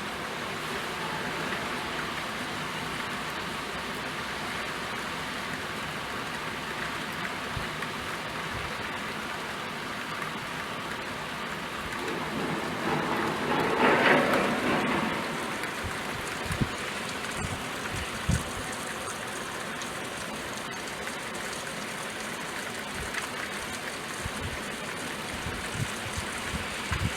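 Steady rain falling, with a louder swell of rushing noise for about three seconds midway and a few short low knocks later on.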